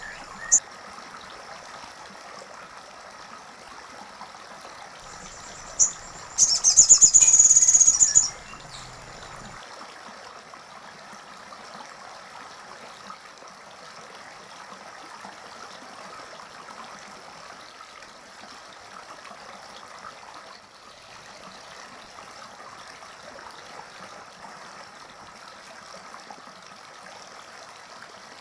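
A bird gives a short high call near the start and then, about six seconds in, a loud high-pitched rapid trill lasting about two seconds. A steady faint hiss fills the rest.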